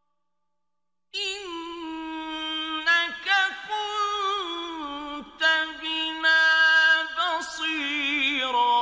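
A male Quran reciter's voice chanting in the melodic mujawwad style, beginning about a second in and drawing out long ornamented notes with a wavering pitch.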